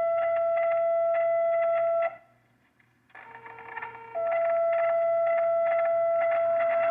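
Two-tone sequential paging tones on a dispatch radio channel, the tone-outs that set off each station's siren in the monthly test. A held higher tone cuts off about two seconds in. After a short gap, a brief lower tone steps up to a long higher tone that holds to the end.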